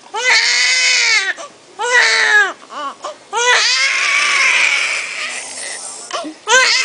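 Newborn baby crying hard in a series of loud wails, each rising and then falling in pitch, broken by short catches of breath. A longer drawn-out wail in the middle trails off, and a fresh cry starts near the end.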